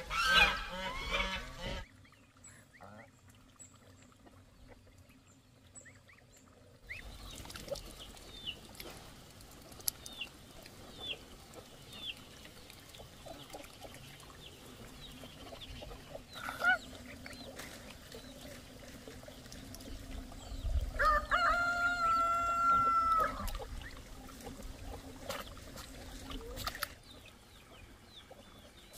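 Farmyard poultry: chickens and geese calling, with goslings giving faint high peeps. A loud call opens the stretch, and about two-thirds of the way through a rooster gives one long, drawn-out crow.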